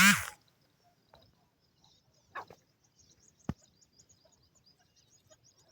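Grey francolin calling: a loud, harsh call ends right at the start, and a shorter call follows about two seconds later. A sharp click comes about a second after that, with faint, rapid, high-pitched chirping in the background.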